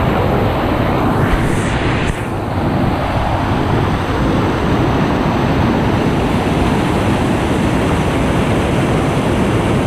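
Floodwater rushing over rocks and rapids in a swollen river: a steady, loud rush of water.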